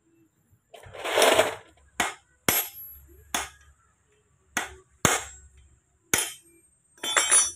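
Hammer striking the gear shaft assembly of a Mitsubishi Triton manual transmission: about six sharp metal strikes spaced unevenly through the middle, with longer clattering of metal parts about a second in and again near the end.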